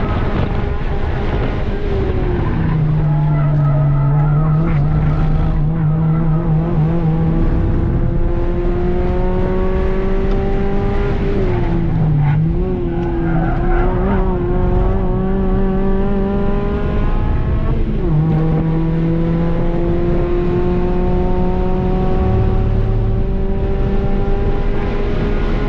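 2008 Honda Fit Sport's muffler-deleted 1.5-litre four-cylinder engine, heard from inside the cabin at full throttle on track, its pitch climbing steadily through the gears over loud road and tyre noise. The engine note dips and recovers about twelve seconds in. It drops sharply at an upshift about eighteen seconds in, then climbs again.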